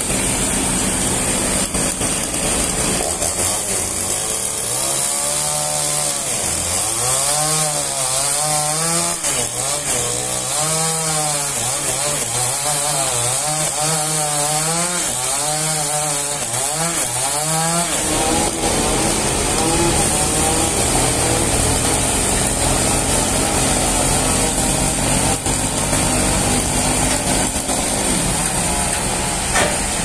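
Gasoline chainsaw cutting into a large trembesi (rain tree) log, its engine pitch rising and dipping about once a second as the chain bites into the wood. About 18 seconds in, the sound turns steadier and rougher.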